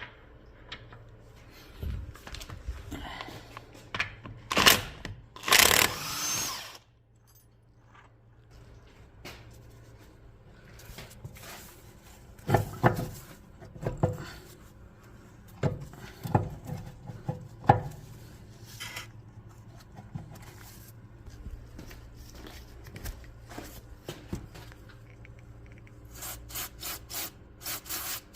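Hand and power tools at work on a car's CV axle: a loud burst of a power tool about five seconds in, scattered knocks in the middle, and a run of quick sharp clicks near the end.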